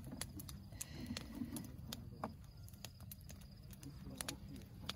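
Faint crackling of a wood bonfire: scattered, irregular sharp snaps and pops over a low, even background.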